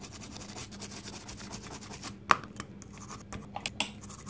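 Small brush scrubbing a circuit board to clean off corrosion: a rapid, continuous scratching of bristles on the board, with one sharp click a little past halfway and a few lighter ticks after it.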